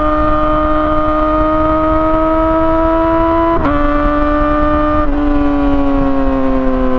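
2017 Yamaha R6's inline-four engine through an Akrapovic exhaust, running at high revs on the move with a strong, steady note. The pitch climbs slowly, drops sharply at a quick gear change about three and a half seconds in, breaks briefly again about five seconds in, and then eases down.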